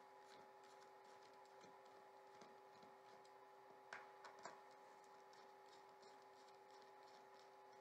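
Near silence: a faint steady hum with a few soft clicks, two slightly louder about four seconds in.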